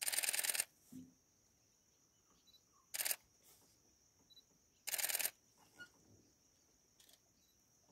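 Edited-in camera shutter sound effect: three short shutter sounds, at the start, about three seconds in and about five seconds in, with near silence between them.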